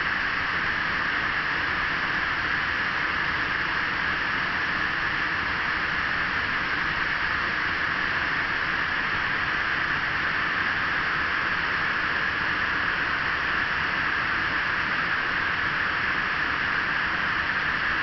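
Fountain water pouring over the rim of a raised bowl and falling in sheets into the basin below: a steady, unbroken splashing rush.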